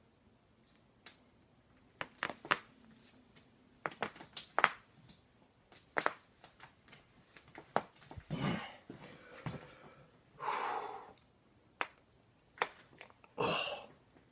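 A series of sharp cracking pops from back joints, scattered and uneven, with a few long breathy exhales in the second half.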